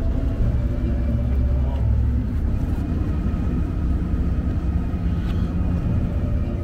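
Vaporetto water bus's engine running with a steady low rumble.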